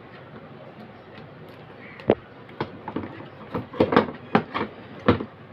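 Sharp knocks and clicks of a bare inverter circuit board being handled and turned over on a tabletop, its multimeter probes and leads rattling against it. About eight hits, starting about two seconds in, most of them bunched together in the middle, and one more near the end.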